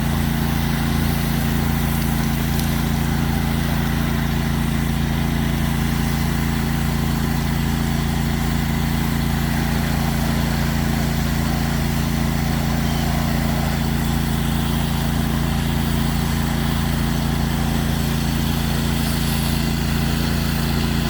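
Pressure washer's engine running steadily at constant speed, with an even hiss over it.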